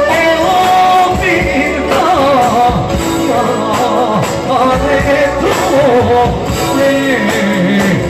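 Live Albanian folk wedding band music, with a clarinet playing an ornamented, wavering melody at the start and singing over the band.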